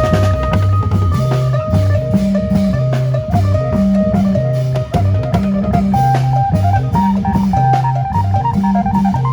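Isan phin band playing lam phoen-style music: a melody over a bouncing, repeating bass line and a steady drum-kit beat.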